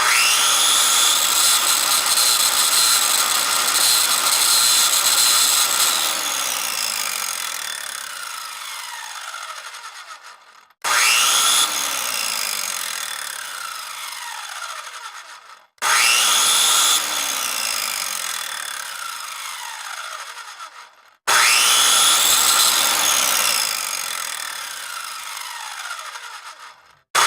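Power cutting tool, a saw or grinder type, switched on four times. Each time it spins up with a quick rising whine, runs loud and harsh, then is released and winds down with a long falling whine as the blade coasts to a stop.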